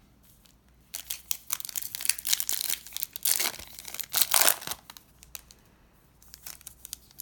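A foil trading-card pack being torn open and its wrapper crinkled: a dense run of crackling and ripping from about a second in that dies away just before five seconds, with a few more crinkles near the end.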